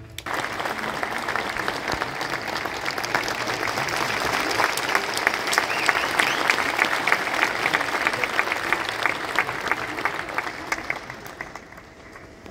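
Large audience applauding: dense clapping that starts as the orchestra falls silent, builds through the middle and fades away near the end.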